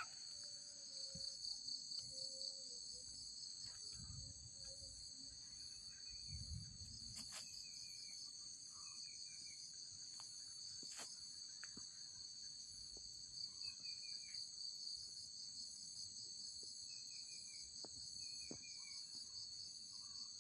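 Faint, steady high-pitched chorus of night insects in trees, with short falling chirps now and then.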